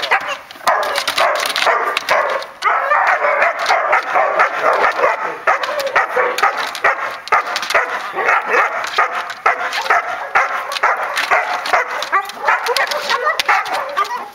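A protection-trained dog barking rapidly and without pause in a bark-and-hold (verbellen) exercise, barking at the helper.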